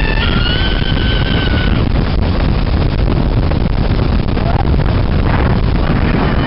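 Heavy wind buffeting the microphone in flight, with a tandem paragliding passenger's long, high-pitched held scream during the first two seconds. After that, mostly wind with a brief short cry about halfway through.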